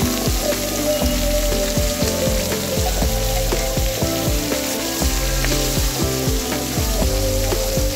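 Whole climbing perch (koi fish) sizzling steadily as they fry in mustard oil in a metal wok.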